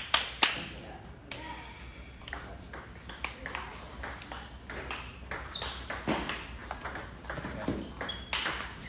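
Table tennis ball clicking off paddle and table twice in the first half second as a rally ends, followed by scattered light ball taps and footsteps.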